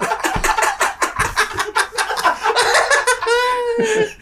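Several men laughing hard in quick, rapid bursts, with one long high-pitched laughing note near the end.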